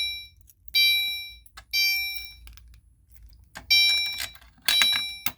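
Fire alarm sounder going off after a pull station is pulled, sounding a chime-like tone that strikes and fades. The tones come about one a second in a group of three, then a pause of about two seconds before the next group starts, the temporal code-3 evacuation pattern.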